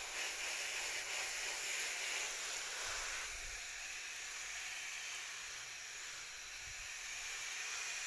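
A fine shower of water spraying onto garden shrubs and leaves, a steady hiss.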